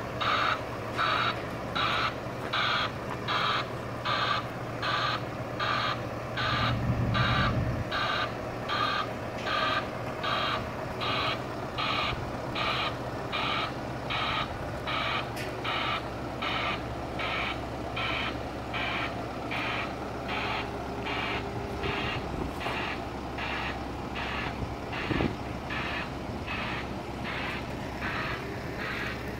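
Backup alarm of a JLG telehandler beeping steadily, about three beeps every two seconds, as the machine reverses with its load. The engine runs low underneath, swelling briefly about seven seconds in.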